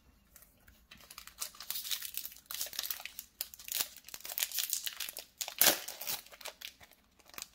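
Foil wrapper of a Pokémon Breakpoint booster pack crinkling and tearing as it is ripped open by hand: a run of crackles from about a second in, with the loudest rip a little past two-thirds of the way through.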